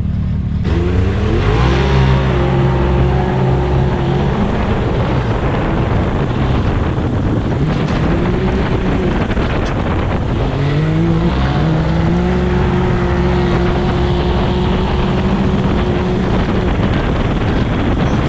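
Can-Am Maverick X3 X-RS Turbo RR's turbocharged three-cylinder engine launching hard under full throttle about a second in, its pitch climbing quickly and then holding high. It eases off around the middle and climbs again, holding high to the end.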